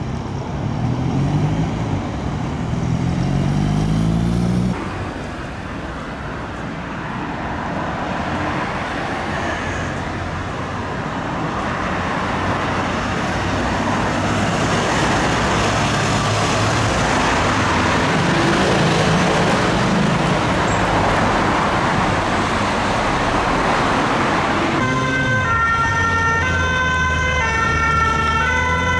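Paris fire brigade vehicles responding with sirens amid traffic noise. A vehicle's engine note rises as it accelerates in the first few seconds, then a long stretch of siren and road noise comes as a fire truck pulls out, and near the end a clear alternating two-tone siren sounds from a fire brigade ambulance.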